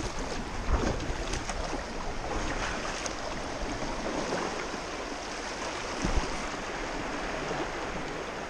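River water rushing and splashing along a canoe as it is paddled down a fast-flowing stream, with a couple of knocks, about a second in and again near six seconds.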